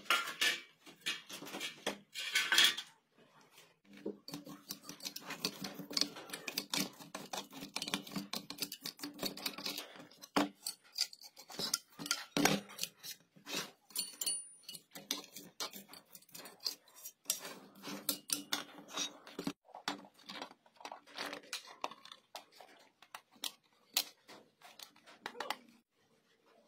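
Workbench handling noises from an inverter welding machine being worked on: a run of clicks, taps and light clatter of its metal case, screws, tools and circuit board, with a faint low hum that comes and goes.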